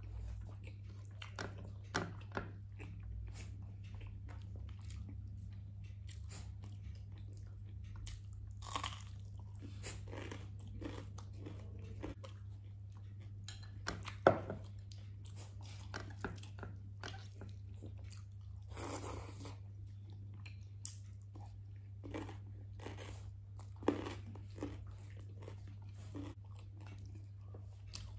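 A person eating close to the microphone: biting into and chewing crunchy food, heard as irregular crunches and wet mouth sounds with a few louder bites, over a steady low hum.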